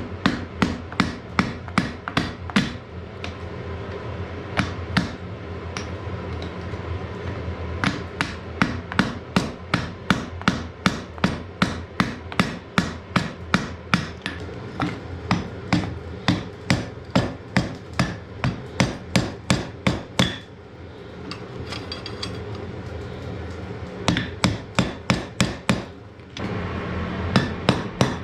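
Blacksmith's hammer striking hot iron on the anvil while forging an axe, in runs of about two to three blows a second with a pause a little past the middle, over a steady low hum that grows louder near the end.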